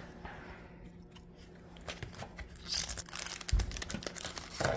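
Foil wrapper of a Pokémon card booster pack crinkling and tearing open, in short crackling runs, with a dull thump about three and a half seconds in.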